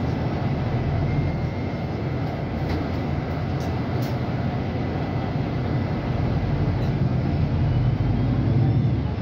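Cabin noise inside a moving VDL Berkhof Ambassador 200 city bus: a steady low rumble of engine and road, with a faint thin whine early on. The rumble swells louder about eight seconds in, then eases.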